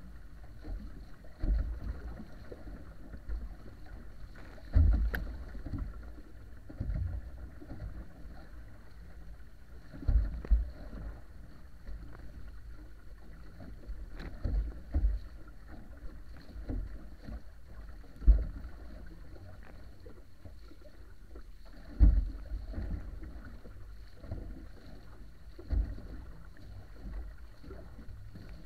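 Water rushing past the hull of a wa'apa outrigger canoe under sail, with wind on the microphone. Irregular low thumps every few seconds as the hull slaps through the chop.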